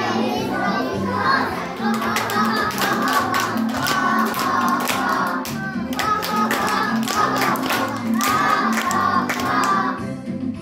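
A group of young children singing a song together, clapping their hands in a steady rhythm from about two seconds in until near the end.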